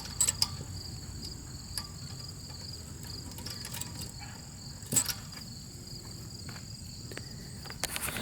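Crickets chirping steadily in the background, with a few sharp clicks and taps from small hardware being handled as the GumBuster can is connected to the carburetor's purge valve. The loudest click comes about five seconds in, and a cluster of clicks follows near the end.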